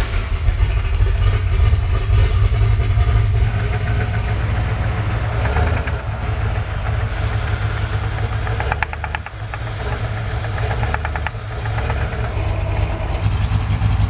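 A Ford Bronco's V8 engine running steadily at idle, with runs of rapid ticking near the middle. The engine has a knock that a mechanic takes for piston slap.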